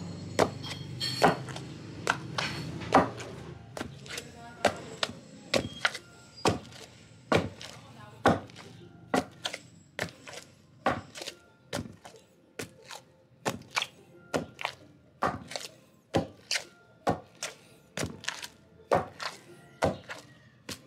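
Wooden pestle (pambayo) pounding soft, warm nilupak mash in a wooden mortar (lusong): a steady run of dull thuds, about two a second, some in quick pairs.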